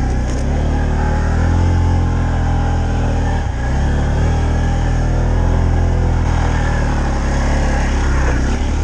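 A vehicle's engine running hard through deep snow, its pitch rising and falling as it revs, with a brief dip about three and a half seconds in.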